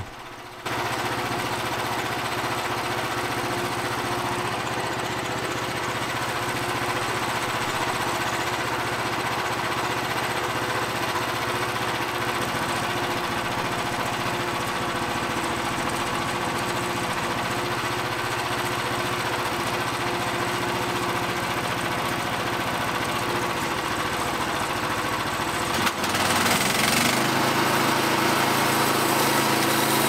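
Small gasoline engine of a portable band sawmill running steadily. About 26 seconds in there is a click, then the sound gets louder and brighter as the band blade engages and starts into a shagbark hickory log.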